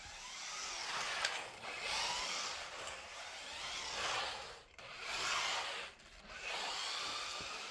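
Brushless MJX Hyper Go 14303 RC rally car driving and sliding on dusty concrete: its tyres give a scrubbing hiss that swells and fades several times as it passes and turns.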